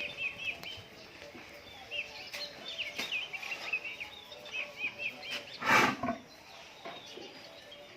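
Small birds chirping in quick, repeated high calls, with one short, loud breathy burst, like an animal's snort or blow, about six seconds in.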